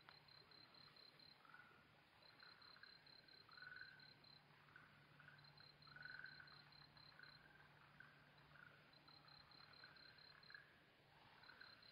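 Faint dusk chorus of frogs and crickets. A cricket gives high, evenly pulsed chirps at about six a second, in runs of one to two seconds every few seconds, while frogs call with short irregular notes, a little louder about four and six seconds in.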